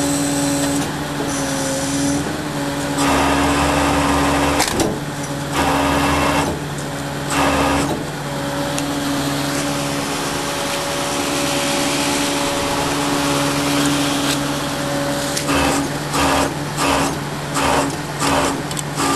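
Tow truck engine running steadily at a fixed pitch. It is overlaid by several louder surges of a few seconds each. Near the end come quick repeated pulses, about two a second.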